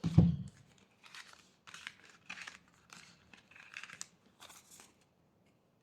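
Tarot cards being shuffled and handled by hand: a run of about eight short, papery swishes and rustles.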